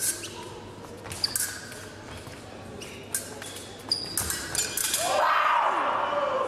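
Épée blades clicking and clinking together, with sharp stamps of footwork and a few brief metallic pings. About five seconds in, a loud shout lasting over a second.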